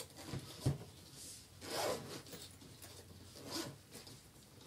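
Zipper of a hard-shell carrying case being pulled open around its edge in several short, faint drags, with a light knock from handling the case under a second in.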